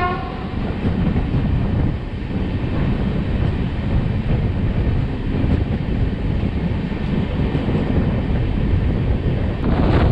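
Shatabdi Express passenger train running at speed, heard from outside the coach door: a steady rush of wind and wheel-on-rail rumble. The tail of the locomotive's horn cuts off right at the start.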